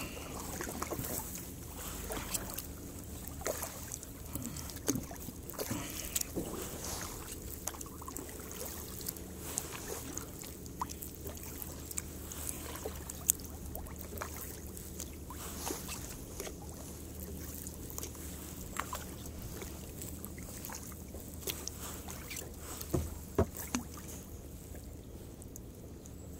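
Kayak paddling: paddle strokes swishing and dripping in the water, with scattered small clicks and taps and a few louder knocks, one about halfway through and a couple near the end.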